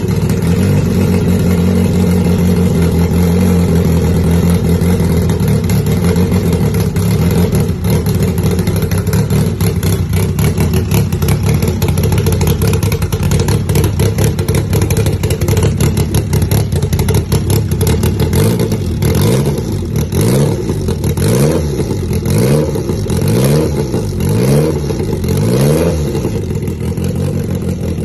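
EL 47 engine running at a steady idle, then revved up and back down about six times in quick succession in the last third.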